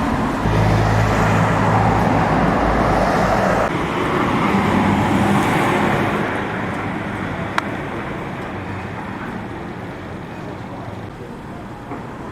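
Street traffic: a motor vehicle passes close by, its engine rumble and tyre noise loud over the first few seconds, then fading away. A single sharp click about seven and a half seconds in.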